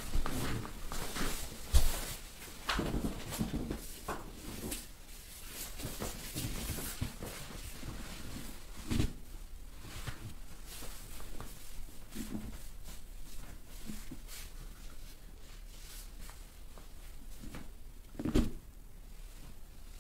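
Dry massage over clothing: hands rubbing and pressing on fabric, with rustling of the shorts and sheet. A few soft low thumps come as the leg and body shift on the massage table, the loudest about two seconds in and near the end.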